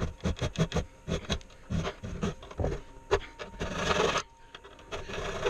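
Quick irregular run of short scraping and knocking strokes on wood, then one longer rasping scrape about four seconds in.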